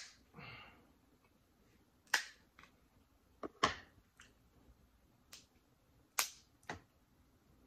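King crab leg shells being cracked and snapped apart by hand, a series of about eight sharp, separate cracks beginning about two seconds in.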